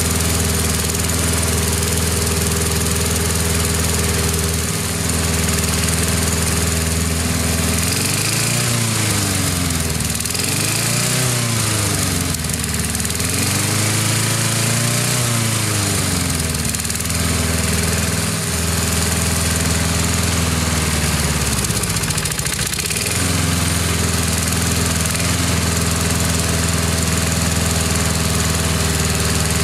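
Briggs & Stratton single-cylinder four-stroke engine on a walk-behind lawn mower running steadily. It is revved up and back down three times by hand at the carburetor throttle linkage, then settles. Its speed sags briefly about two-thirds of the way through and picks back up. The freshly refurbished engine is being run to warm up.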